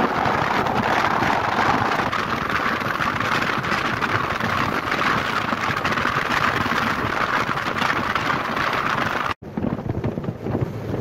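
Wind buffeting the microphone over the steady rush of a ferry under way on the river. About nine seconds in, the sound cuts out for an instant and comes back as a quieter, duller rush.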